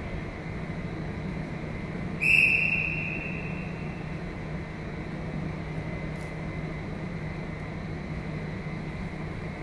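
A single short, high whistle blast about two seconds in, ringing out in the gymnasium and fading over about a second, over a steady low hum in the hall.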